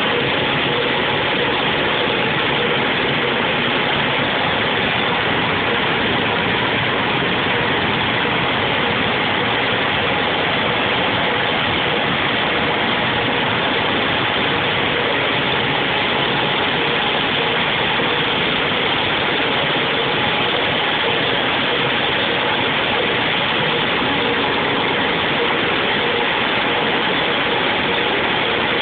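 Machinery running steadily: an even mechanical noise with a few faint steady tones in it, unchanging in level.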